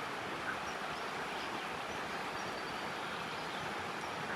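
Steady rushing of a river flowing past, an even noise with no rise or fall.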